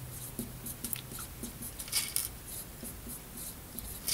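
Pen writing on a small paper card, in short irregular scratching strokes.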